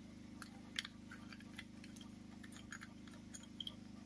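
Faint small plastic clicks and taps as the nozzle and air cap of a handheld electric paint sprayer are taken apart to clear a clog, over a faint steady low hum.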